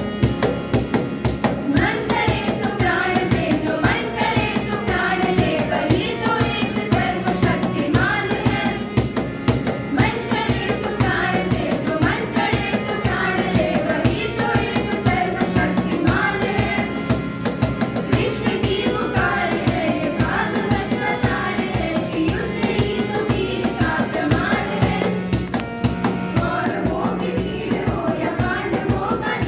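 Group of voices singing a Hindi song to a fast, steady beat of tambourine-like shaken percussion.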